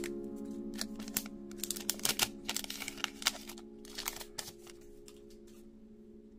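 Foil booster-pack wrapper and trading cards being handled: a quick run of crinkles and small card clicks that thins out after about four seconds, with background music fading out underneath.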